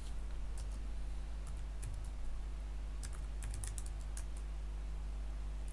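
Computer keyboard typing: short runs of key clicks, over a steady low hum.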